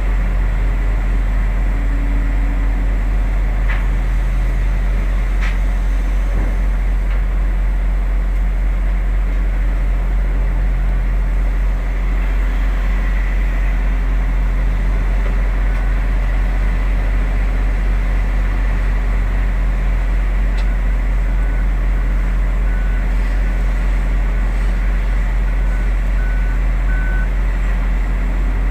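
Heavy diesel machinery running steadily with a deep low rumble. In the second half come several short faint beeps at one pitch, like a reversing alarm.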